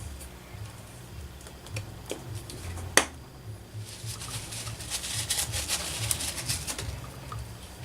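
Small metal engine parts being handled on a workbench during reassembly of a model glow engine: one sharp click about three seconds in, then a flurry of light clicks and scraping for a few seconds, over a low pulsing hum.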